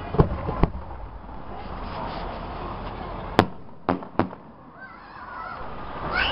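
Aerial fireworks shells bursting: five sharp bangs, two in the first second, the loudest about three and a half seconds in, and two more close behind it.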